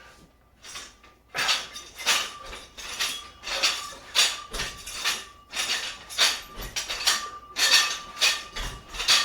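Metal weights clinking in a steady rhythm, about three clinks every two seconds, during a set of overhead presses.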